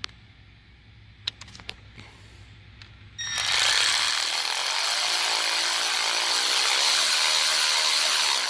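A few light clicks of tool handling. Then, about three seconds in, a handheld power tool starts and runs steadily and loudly, driving a fastener on the engine's Valvetronic assembly.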